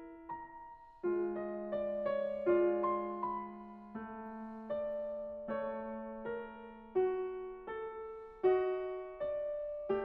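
Background piano music: a slow run of single struck notes over a held low note, with a short pause about a second in.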